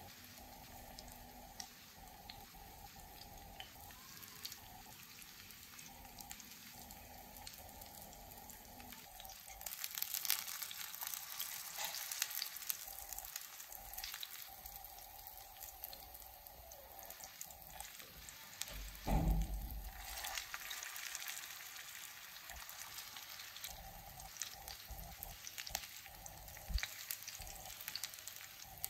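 Marinated fish pieces sizzling in oil on a flat iron tawa. The sizzle grows louder about a third of the way in, as the pieces are turned with tongs, and there is a single thump about two-thirds through.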